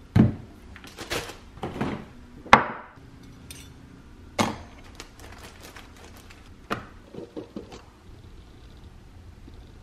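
Food jars being handled, set down and opened on a granite countertop: a series of knocks and clatters, the sharpest about two and a half seconds in, then three light clicks near the end.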